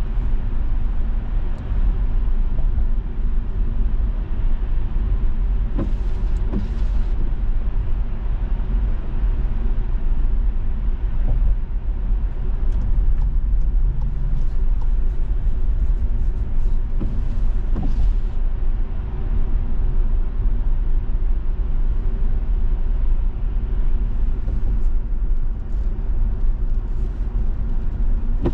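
Steady low rumble of road and engine noise inside a moving car's cabin at expressway speed, with a few short bursts of higher hiss.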